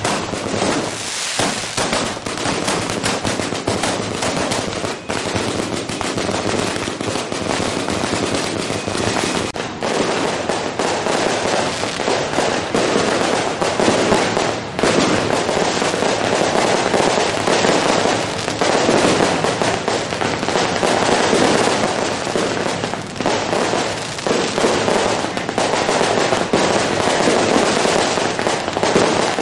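Firecracker strings going off in a long, unbroken barrage: a dense, continuous crackle of rapid bangs that never pauses.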